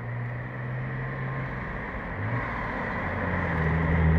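Engine of an R34 Nissan Skyline running at low revs as the car drives slowly past. The note changes about three seconds in and grows louder as the car draws alongside near the end.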